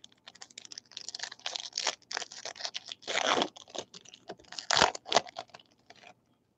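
Foil wrapper of a trading card pack being torn open and crinkled in the hands: a run of quick crackles, with one louder crackle about five seconds in, stopping about a second before the end.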